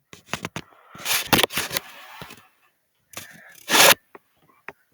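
Scraping and rustling handling noise in three loud bursts, with a few sharp clicks near the end.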